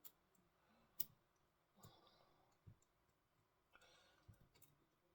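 Faint, scattered clicks of the KLICKfix mini adapter and its metal strap bracket being handled and fitted onto wheelchair tubing, the sharpest about a second in and a few close together near the end; otherwise near silence.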